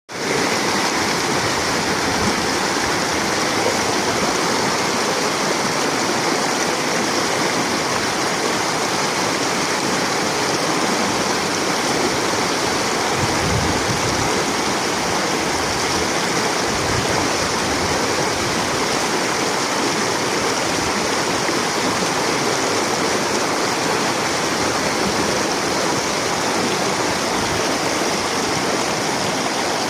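Fast-flowing stream water rushing steadily, with a couple of brief low bumps about halfway through.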